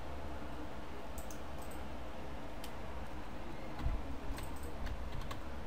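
Scattered soft computer keyboard keystrokes and clicks over a low, steady background hum.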